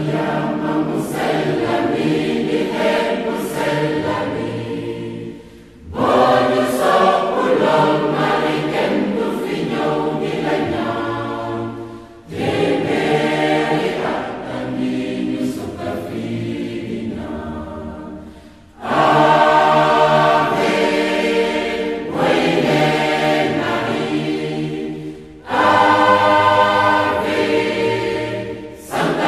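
Church choir singing a hymn in phrases of about six to seven seconds, with a short break between phrases.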